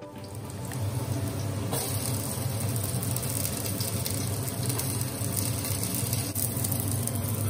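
Chopped onion and curry leaves sizzling in hot oil in a steel pot, a steady crackling hiss over a constant low rumble.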